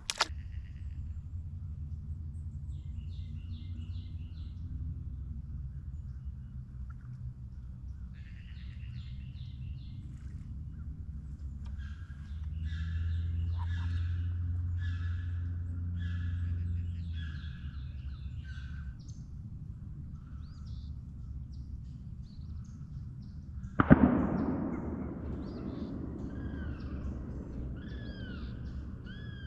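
Birds chirping and trilling over a low steady hum. About 24 seconds in there is one loud, sudden thump that dies away over a second or two. Near the end a bird repeats short arched whistles, about two a second.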